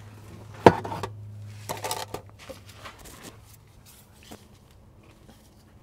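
Oil drain pan being set into position under the engine: a sharp knock under a second in, then a few lighter clatters and taps, over a steady low hum.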